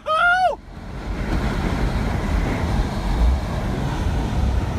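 Strong wind and rough, surging water rushing steadily, with wind buffeting the microphone and a heavy low rumble. A short high cry is heard at the very start.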